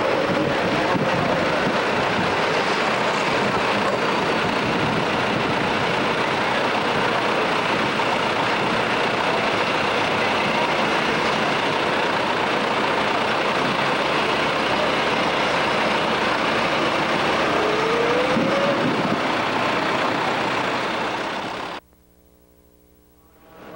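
Super stock pulling tractor's engine running loud and steady at the start line. It cuts off suddenly about two seconds before the end.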